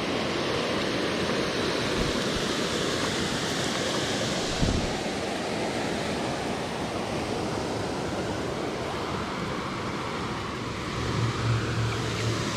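Steady rush of a small stream's water running over rocks. There is one dull low bump a little before halfway through.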